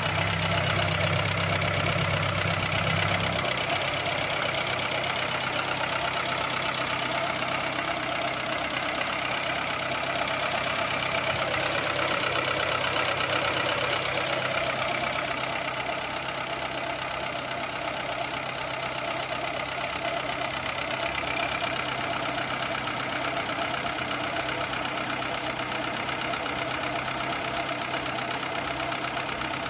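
Citroën Saxo 1.1-litre petrol engine idling, with a diesel-like ticking from the engine. The mechanic puts the ticking down to valve clearances needing adjustment or to worn camshaft lobes or rockers.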